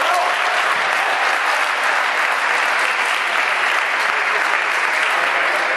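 Spectators applauding steadily after a table tennis point is won.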